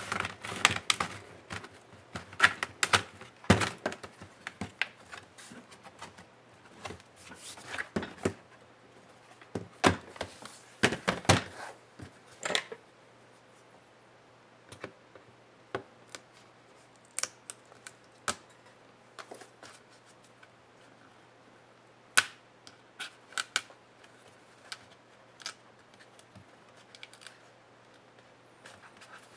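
Plastic clicks, knocks and scrapes from handling a laptop: it is closed and turned over, then its rubber feet are pried off the base with a small tool. The knocks are loud and close together for about the first twelve seconds, then give way to lighter, scattered clicks.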